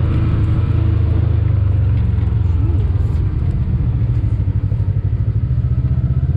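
Side-by-side UTV engine running at low, steady revs, a deep pulsing drone.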